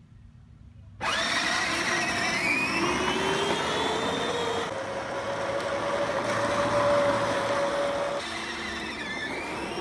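Electric drive motors and gearboxes of a Power Wheels ride-on toy car whining as it drives off, starting suddenly about a second in. The whine rises in pitch as it speeds up, holds steady, then drops about eight seconds in and starts to climb again.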